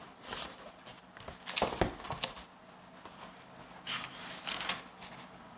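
Paper pages of a baby book being handled and turned, rustling and brushing, mostly in the first two seconds and again briefly around four seconds in.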